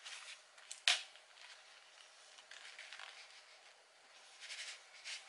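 Ghostek SoDrop 2 folding Bluetooth headphones being unfolded and put on: one sharp click about a second in, then faint handling and rustling of the plastic headband and ear cups.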